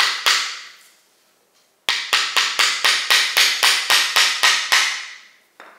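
A hammer driving a 1¼-inch nail into a hardwood pallet-board offcut, a test of whether the nail will go in without pre-drilling. Two blows, a pause of about a second and a half, then a fast, even run of about seventeen ringing strikes over three seconds.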